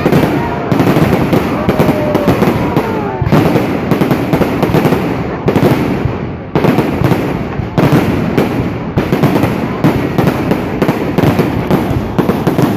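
Fireworks going off in a dense, continuous run of bangs and crackling, with a brief lull about six seconds in. A few whistles fall in pitch in the first few seconds.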